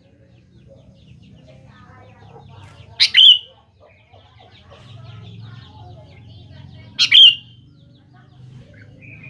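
Sooty-headed bulbul (kutilang) giving a loud, sharp, short two-note call twice, about four seconds apart. Faint chirping and a low hum sit underneath.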